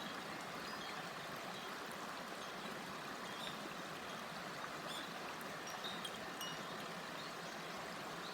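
A shallow river babbling steadily over stones, with a few faint, sparse notes from a Koshi wind chime ringing in the middle.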